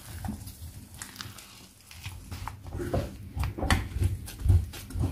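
A wooden spoon stirring and beating thick geat porridge in a metal pot, giving irregular dull thuds and scrapes. These grow more frequent from about halfway through.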